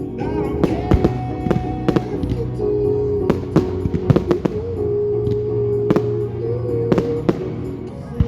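Fireworks going off in a string of sharp bangs, about ten spread irregularly through the stretch, over music with long held notes playing loudly underneath.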